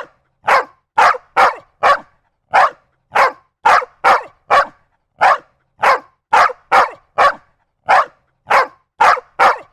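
A dog barking repeatedly in a steady run of short, sharp barks, about two a second, with brief silent gaps between them.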